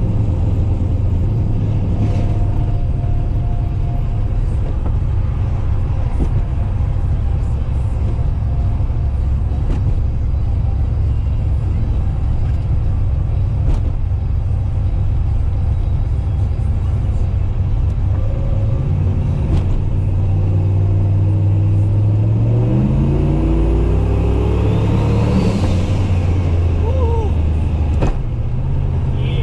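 Turbocharged LS V8 street car's engine and exhaust with a steady low rumble. About two-thirds of the way through it revs up for several seconds, with a whine that rises and falls, then drops back near the end.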